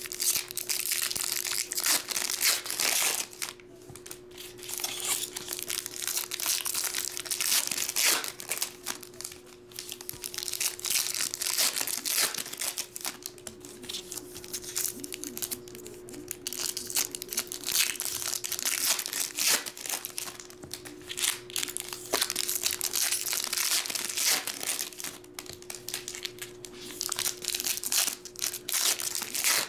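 Foil trading-card pack wrappers being torn open and crinkled by hand, pack after pack, in irregular bursts of rustling.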